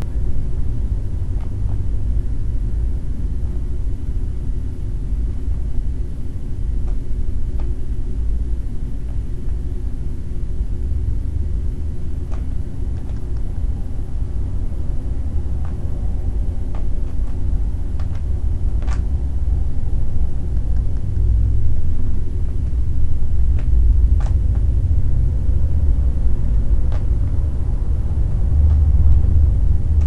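A steady low rumble throughout, with scattered faint clicks from a Rubik's cube being turned by hand.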